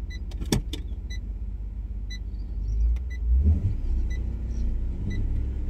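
Ford AU Falcon's engine running inside the cabin, with a short electronic chime beeping about once a second. About three seconds in the engine revs up briefly and settles while in drive, but the car doesn't go: the gearbox isn't engaging drive.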